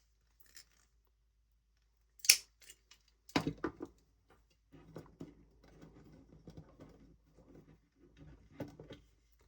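Small parts and tools being handled at a workbench: a sharp click about two seconds in, a few quick knocks a second later, then light irregular rummaging and rustling.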